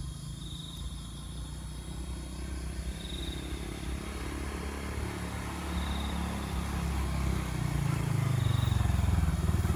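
A motorcycle engine running, its low rumble growing steadily louder through the second half as it comes closer. A faint high chirp repeats about every two and a half seconds.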